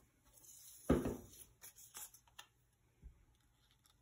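A plastic glue bottle set down on a desk with a knock about a second in, amid the rustle of paper petals being handled and pressed onto a paper sheet, with a few light taps and a softer knock near the end.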